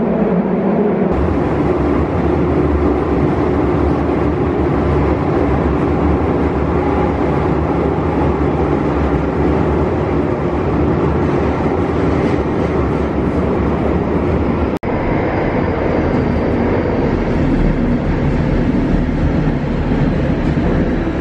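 Keio 5000 series commuter train running between stations through a subway tunnel, heard from inside the passenger car: a steady, loud rumble of wheels on rail. The sound cuts out for a moment about two-thirds of the way through.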